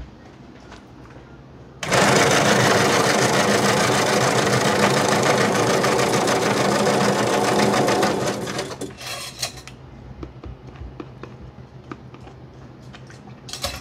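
Bingsu shaved-ice machine running, grinding frozen ice into fine snow-like flakes that fall into a cup; it starts abruptly, runs steadily for about six seconds and winds down, followed by a few light clicks of handling.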